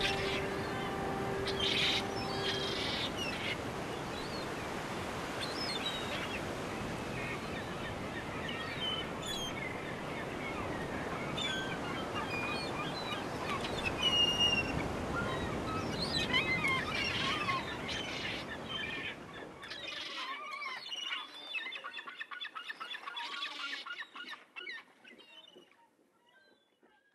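Seagulls calling over and over above a steady rushing background noise, which cuts off about twenty seconds in. The calls then thin out and fade away near the end.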